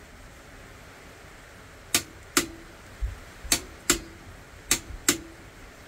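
Adjustable torque wrench clicking as it reaches its set torque while twisting an oil pump drive shaft: three sharp double clicks, starting about two seconds in and a little over a second apart.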